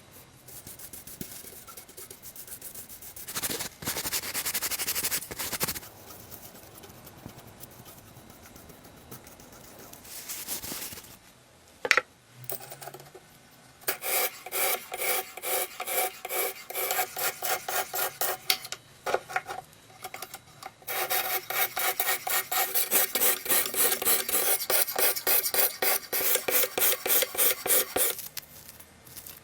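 Repeated back-and-forth rasping strokes of hand abrasion on a rusty old knife: first a brief rub, then steady strokes about three a second, and after a short pause a faster, continuous run of strokes.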